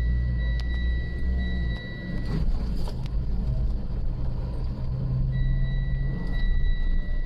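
Vehicle engine running with a low rumble during an off-road recovery, with a steady high-pitched tone that drops out for about three seconds in the middle.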